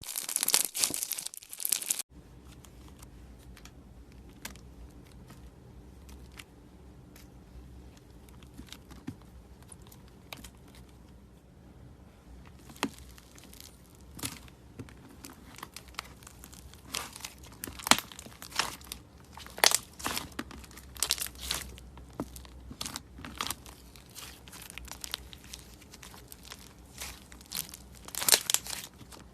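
Slime being squeezed and stretched by hand, giving sticky crackling and popping clicks. A dense, loud crackle stops abruptly about two seconds in, and after a quieter stretch of scattered clicks the pops come thicker and louder over the second half.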